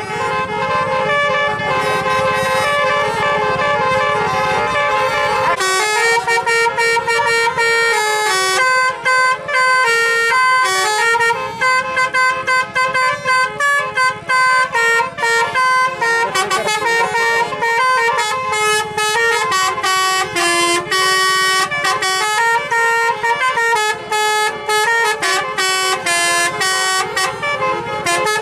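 Telolet bus horn playing a melody: a long run of loud, steady horn notes stepping from pitch to pitch with short breaks between them. A low rumble sits under the first few seconds.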